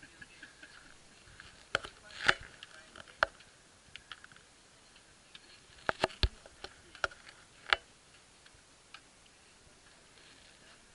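Sharp, irregular clicks and taps of trekking pole tips striking rock steps, about a dozen in all, with several in quick succession a little past the middle.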